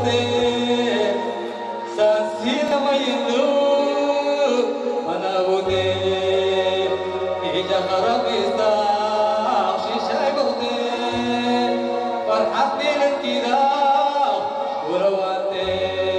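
Live Eritrean wedding music: a male singer on a microphone over an electronic keyboard, with long held bass notes that change about every five seconds under a melody.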